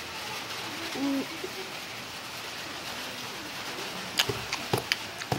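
Knife cutting pineapple on a cutting board: several sharp knocks of the blade against the board over the last second or so, over a steady hiss. A brief low pitched sound, like a coo or hum, about a second in.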